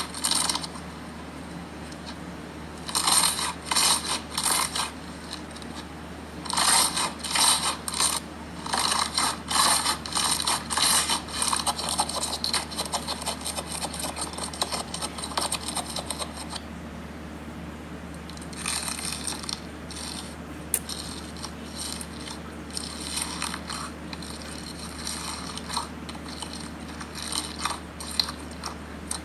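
Slime being played with, making rapid crackling, clicking pops in bursts of a few seconds with short quieter pauses between them.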